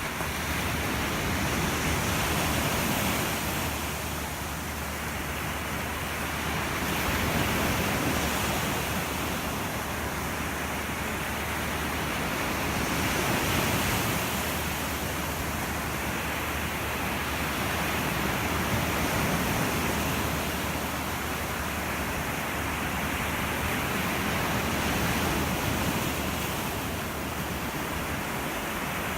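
Sea waves washing onto a beach: a continuous rushing surf that swells and eases about every five to six seconds.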